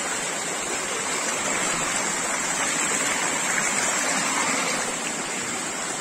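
Shallow forest stream running over rocks: a steady rushing and gurgling of water.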